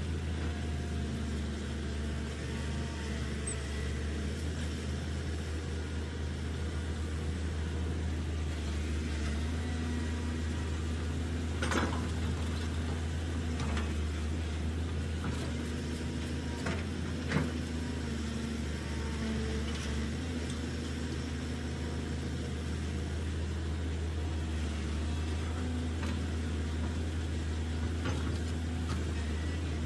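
Remote-controlled toy construction trucks running with a steady, low engine-like hum, broken by a few short sharp clicks about twelve seconds in and twice around seventeen seconds.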